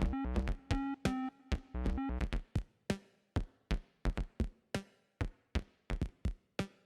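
Synthesized percussion from the Surge software synthesizer playing an electronic drum pattern. For about the first two seconds the hits come fast, pitched and tom-like, with a deep kick underneath. After that the pattern thins to short, sharp clicky hits a few times a second.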